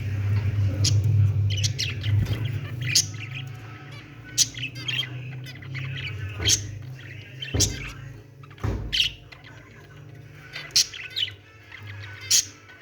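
Small cage birds, budgerigars and zebra finches, chirping: short, sharp calls scattered every second or so, over a low steady hum that weakens after the first few seconds.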